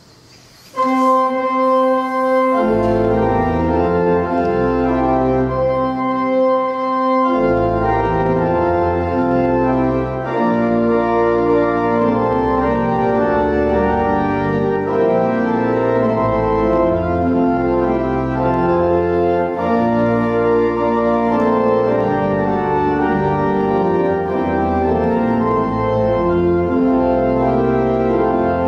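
Church organ playing slow, sustained chords. It comes in about a second in, and low bass notes join about two seconds later.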